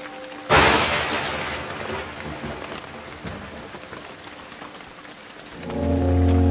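Steady rain, with a sudden loud thunderclap about half a second in that rumbles away over the next couple of seconds. Music of sustained low tones swells in near the end.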